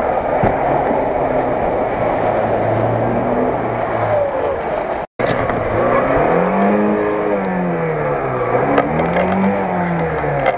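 Off-road vehicle engines running steadily. After a cut about halfway, a Lada Niva's engine revs up and down twice as it drives through deep mud.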